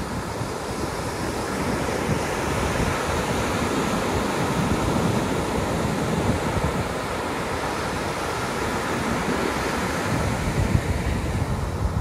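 Pacific Ocean surf breaking and washing up a sandy beach: a steady rushing wash that swells and eases as the waves come in.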